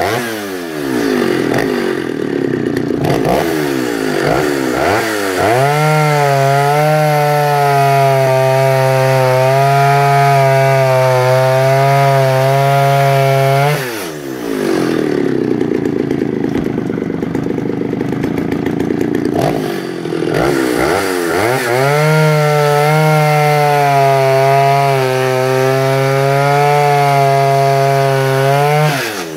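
Vintage Stihl 08S two-stroke chainsaw with a new steel chain, cutting through a log round at full throttle in two long cuts of about eight seconds each. Each time the engine revs up and holds a steady high pitch that dips slightly under load. It falls back to a rough, lower running between and after the cuts.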